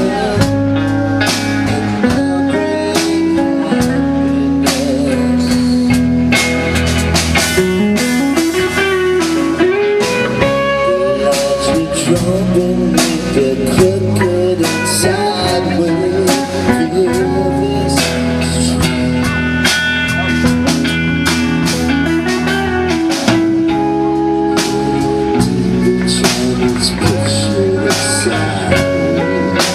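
Live band playing: electric guitars over a drum kit, with regular drum hits.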